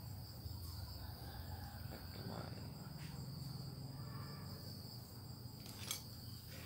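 Quiet background: a faint, steady high-pitched insect trill over a low rumble, with a small click about six seconds in.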